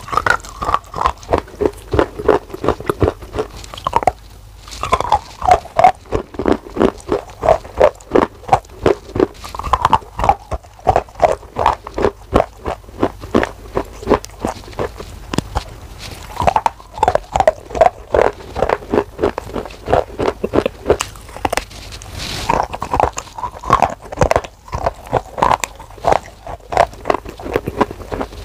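Close-up chewing of a mouthful of dark slate chocolate bar: steady runs of crunchy, wet chews with brief pauses.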